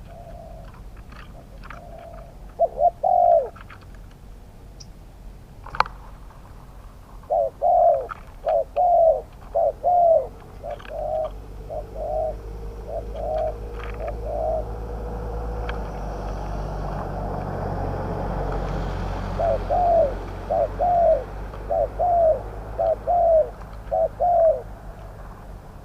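Spotted doves cooing in runs of short, repeated notes, a few near the start and longer runs in the middle and toward the end. A single sharp click comes about six seconds in. A rushing noise swells and fades in the middle, under the coos.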